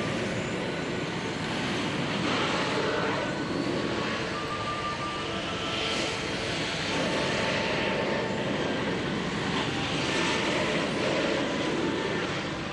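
T-80 tanks' gas-turbine engines running with a steady jet-like whine, mixed with the rumble and clatter of their tracks as they manoeuvre on dirt.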